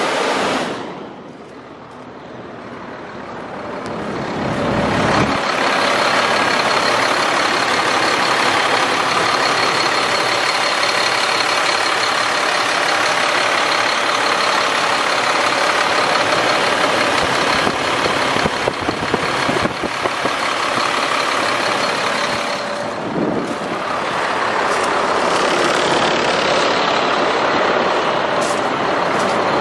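Caterpillar C7 diesel engine of a Sterling L8500 truck running steadily at idle, heard from close to the engine bay, with a faint steady high whine through it. The sound dips briefly about a second in.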